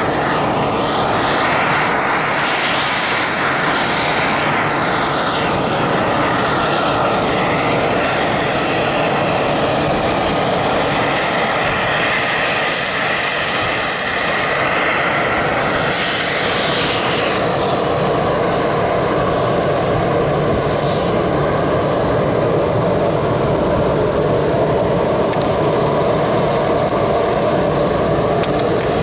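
Airbus A319-112 airliner's CFM56 turbofan engines running at taxi power, a steady loud roar with whining tones that shift up and down in pitch during the first half and then settle.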